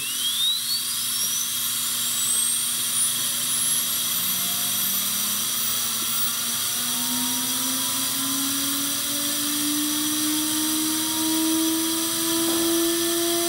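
Moore G18 jig grinder's grinding spindle starting up and running: a steady hiss with a high whine that climbs steeply in pitch over the first few seconds until it passes out of hearing. Fainter lower tones rise slowly from about the middle on.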